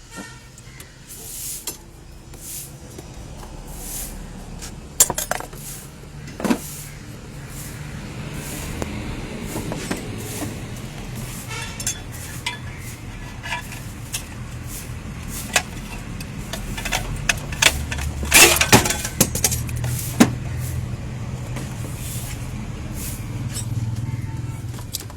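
Metal tools and parts clinking and knocking in scattered sharp strikes, loudest in a quick cluster about two thirds of the way through, over a steady low hum.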